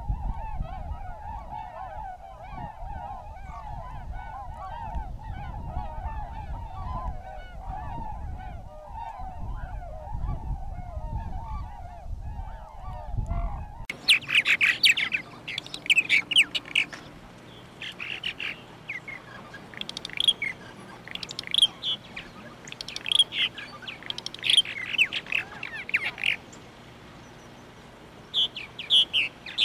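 Flock of tundra swans calling, a dense chorus of many overlapping high honks over a low rumble. About halfway through it cuts off suddenly and purple martins take over with loud, high chirps in short bunches separated by brief gaps.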